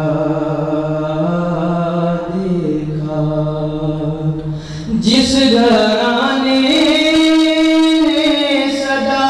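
A young man's solo voice chanting a noha, a Shia mourning lament, into a microphone in long held notes. About five seconds in, the voice steps up to a higher, louder line.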